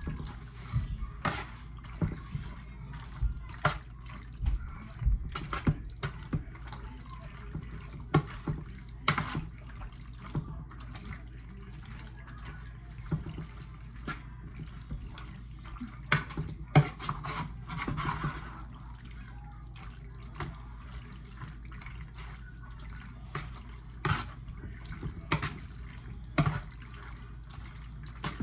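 A utensil stirring and folding sauced pasta in a baking dish, making wet squelching with irregular sharp clicks and scrapes against the dish, over a steady low hum.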